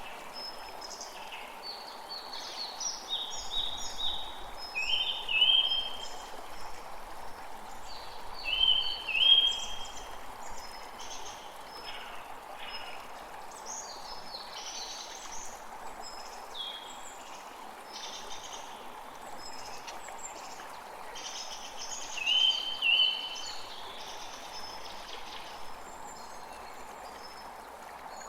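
Creek water flowing steadily with several birds singing over it in short, repeated chirping phrases. The loudest bird phrases come about five and nine seconds in, and again after twenty-two seconds.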